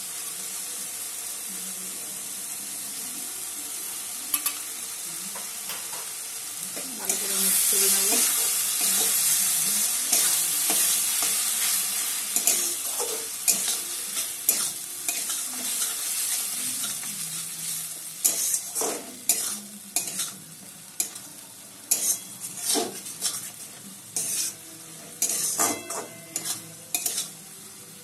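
Spiced masala with yogurt sizzling in a metal kadai while a metal spatula stirs it. About seven seconds in the sizzle swells loudly, then slowly dies down. In the second half the spatula scrapes and knocks against the pan about once a second.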